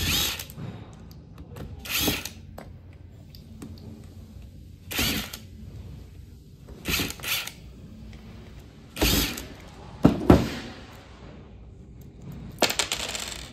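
Cordless power driver run in short bursts, again and again, unscrewing the fasteners of a dust-collector diaphragm pulse valve's pilot press plate. There are two louder knocks about ten seconds in.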